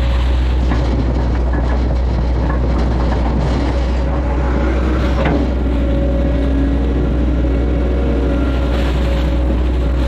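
Hitachi excavator's diesel engine running steadily under load with a steady hydraulic whine, as the bucket digs and dumps wet mud. A few short clanks, the clearest about five seconds in.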